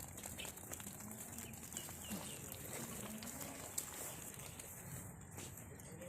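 Goats calling faintly against a farmyard background, with a few bird chirps.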